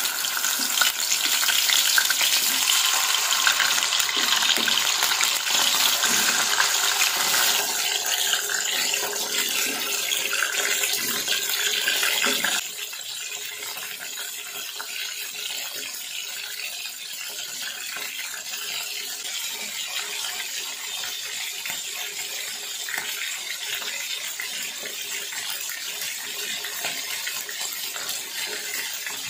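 Whole tulingan (frigate tuna) frying in hot cooking oil in a pan: a dense, steady sizzle full of small crackling pops. A little before halfway through, the sizzle drops suddenly to a quieter, even frying.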